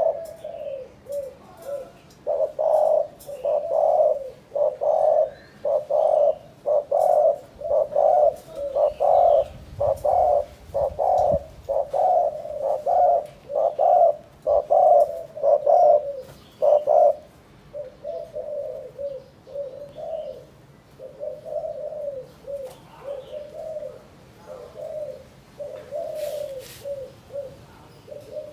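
Spotted dove cooing: a long run of short, evenly spaced coos, louder for the first seventeen seconds or so and softer after that.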